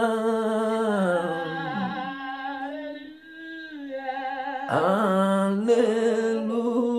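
A single voice singing a slow, drawn-out worship "hallelujah" in long held notes with vibrato. The pitch falls and fades about two seconds in, then swoops up into a new sustained note a little before five seconds.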